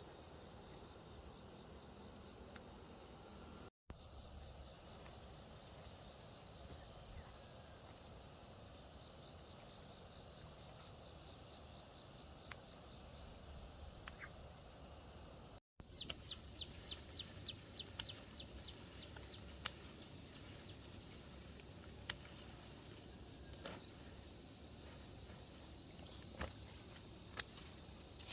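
Insects trilling steadily at a high pitch in a continuous chorus. Just after the middle, a quick run of about ten sharp clicks comes in, followed by a few scattered knocks. The sound cuts out briefly twice.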